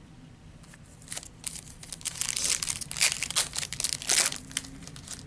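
A trading card pack's foil wrapper being torn open and crinkled: a run of rustling, crackly handling noise that begins about a second in and is loudest through the middle.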